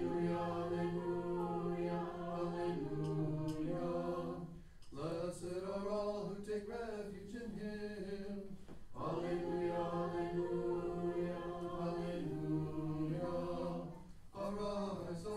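Church choir singing Orthodox chant a cappella, in long sustained phrases with a brief break about every four to five seconds.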